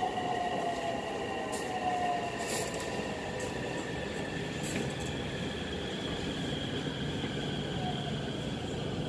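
Electric metro train of Bangkok's MRT Purple Line heard from inside the carriage as it slows into a station: a steady high whine, with a lower whine falling in pitch as it brakes, and a few light clicks.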